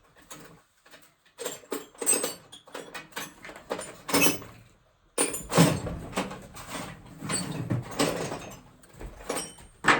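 Steel parts of an NV4500 manual transmission being worked apart by hand: irregular clinking, scraping and sliding of metal on metal, with brief high rings. A pause comes about halfway through, and a single sharp knock near the end.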